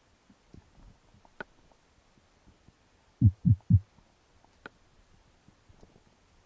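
Underwater recording through a camera housing: three quick low thumps in a row a little past three seconds in, with a single sharp click before them and another after.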